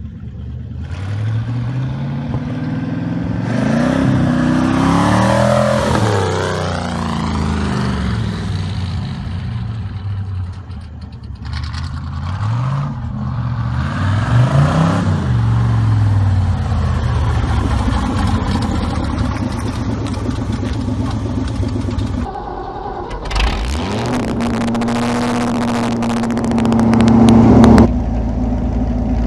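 V8 tractor engine revving up and down as the tractor accelerates along a road, its note rising and falling repeatedly. About three-quarters of the way through it cuts to a V8 tractor with open upright exhaust stacks revving and holding a steady high note, which drops off suddenly near the end.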